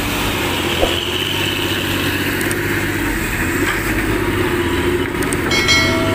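A motor vehicle's engine running steadily, with a brief high-pitched tone about five and a half seconds in.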